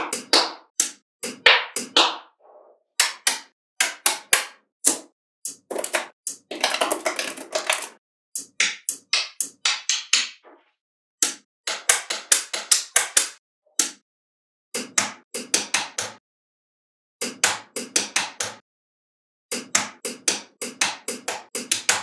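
Magnetic balls clicking and snapping together in quick runs of sharp clicks, the runs separated by silent gaps. About six seconds in comes a longer, denser rattle, as of many balls shifting together at once.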